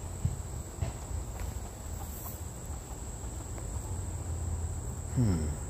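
Insects, likely crickets, giving a steady high-pitched drone over a low background rumble. About five seconds in, a chicken gives a short cluck.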